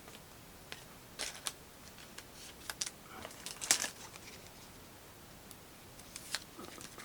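A trading card being handled and slid into a plastic card sleeve: scattered soft plastic rustles and small clicks, the loudest a little before halfway.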